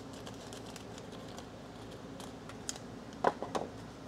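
Light clicking and tapping as plastic-bagged stationery packages are handled and moved on a tabletop, with a few sharper clicks about three seconds in.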